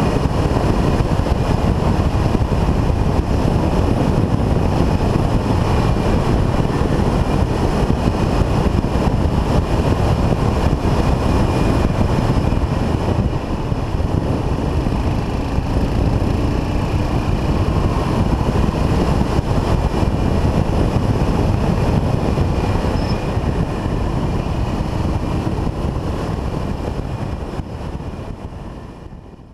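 1979 Yamaha XT500's air-cooled single-cylinder four-stroke engine running at a steady cruise, mixed with wind rushing over the camera. The sound fades out over the last few seconds.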